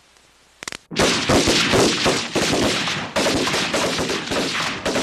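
Several automatic rifles firing rapidly together, a dense, continuous volley of overlapping shots that starts about a second in.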